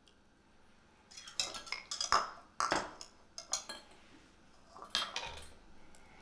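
A spatula scraping and knocking thick barbecue sauce out of a measuring cup into a mixing bowl, in a run of quick scrapes and clinks starting about a second in. Another clatter comes near the end as a measuring cup and whisk are handled.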